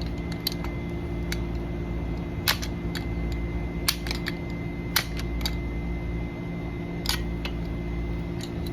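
Scattered sharp metallic clicks, about six over several seconds, from a door lock's cylinder and push-bar hardware being worked by hand and screwdriver, over a steady background hum.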